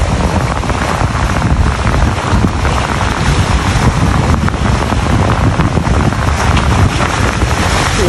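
Strong wind buffeting the microphone, over waves surging and splashing against the rocks of a sea wall.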